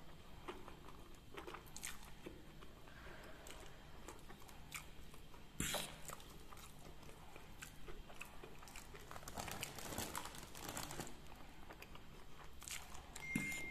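Close-miked eating of fried instant noodles and crisp seroja crackers: steady chewing with crunches, one louder crunch about halfway through. A faint steady high tone starts near the end.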